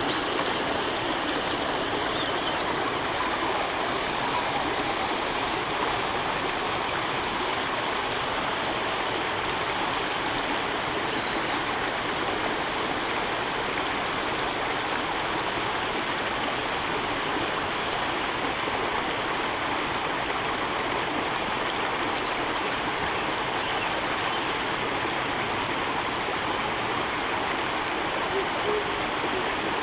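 Water of a shallow, rocky stream rushing steadily over stones.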